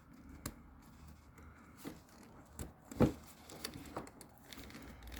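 Hands working a fuel line connector onto its fitting on the fuel tank: scattered light clicks and taps, the loudest about three seconds in.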